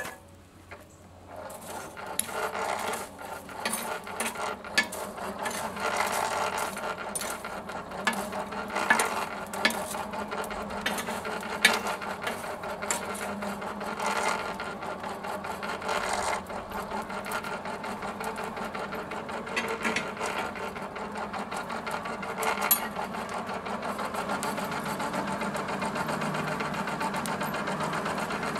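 A small machine running steadily, with irregular clicks and knocks over it, starting about a second in.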